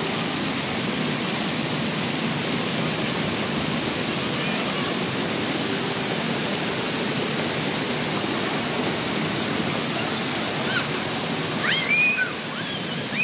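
Steady hiss of water drops falling from an overhead artificial-rain fountain onto wet paving. Near the end, children give a few short, high squeals over it.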